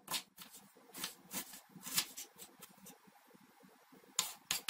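Kitchen knife chopping an onion on a wooden cutting board: a handful of sharp, irregular taps of the blade on the board, with a quiet gap in the middle.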